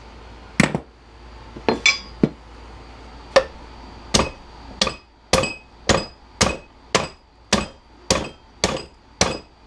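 Hammer striking metal while a corded drill is knocked apart for scrap: a few scattered blows, then a steady run of about two blows a second from about four seconds in, each with a short metallic ring.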